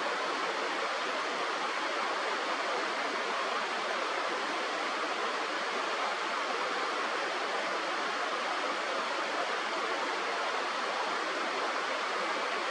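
Steady rushing of a river or stream, an even hiss of water that does not change.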